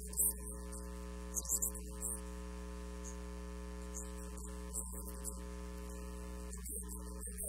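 Steady electrical mains hum under soft music of long held chords, the chord shifting about one and a half seconds in and again near the end.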